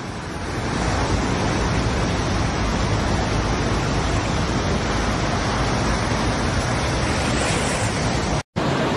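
Steady rushing noise of floodwater and heavy rain across a flooded street. The sound cuts out for a split second near the end.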